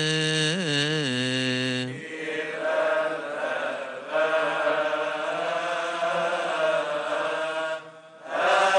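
Coptic liturgical chant. A single male voice chants the close of the Gospel introduction through the church microphone, holding the last word until about two seconds in. A more diffuse response chant then follows and breaks off briefly just before the end.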